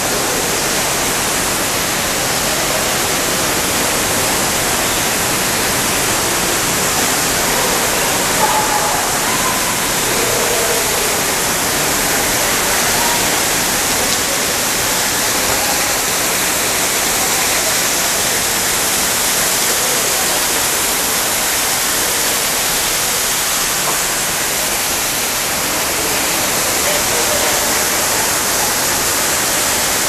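Steady rush of falling water, an even hiss that does not change, with faint distant voices about a third of the way in.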